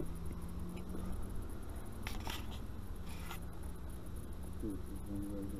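An action camera being handled and set down: a few rustles and knocks about two seconds in and again just after three seconds, over a steady low background hum.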